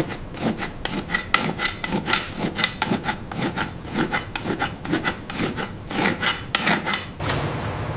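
A blade scrapes a lime-treated ostrich hide by hand, in quick, even strokes of about three a second. Near the end a steady low hum takes over.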